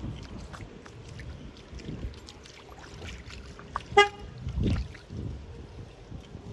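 A car horn gives one very short toot about four seconds in, over low rumbling outdoor noise.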